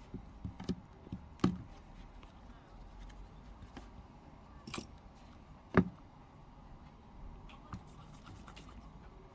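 Small hard objects being handled on a counter: a few scattered clicks and knocks, the loudest about six seconds in.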